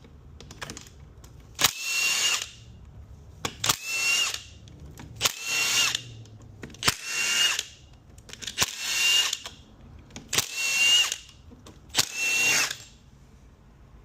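Power driver spinning out the transmission pan bolts one after another: seven short bursts of a high motor whine, each about a second long with brief pauses between.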